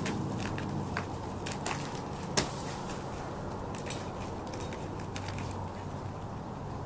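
Scattered crackles and crunches of dry wood debris being handled or stepped on, with one sharp crack about two and a half seconds in, over a faint steady low hum.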